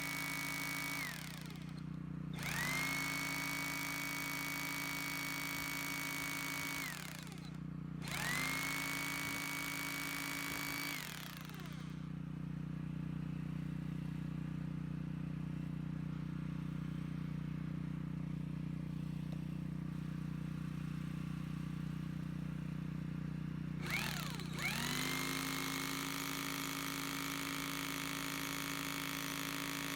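Bosch GBH2/20S electric hammer drill motor run in short pulls of the trigger: each time it spins up quickly to a steady high whine, runs a few seconds and stops. For about twelve seconds in the middle it runs at a lower, steadier pitch without the whine, then spins up to full speed again near the end.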